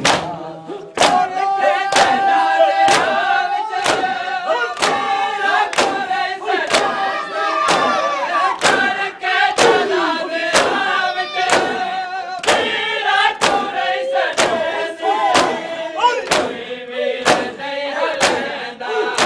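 Group of mourners chanting a noha together while beating their chests in unison (matam): a sharp slap of hands on chests about once a second, keeping time under the voices.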